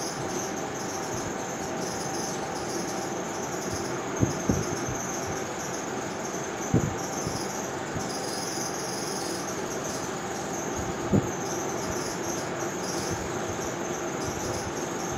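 Steady background noise with a high, thin chirring throughout and a few short, soft low knocks.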